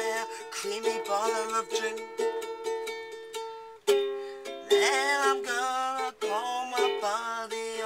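Ukulele strummed in chords with a woman singing along. Just before the middle the playing drops away for a moment, then comes back in with a loud strum.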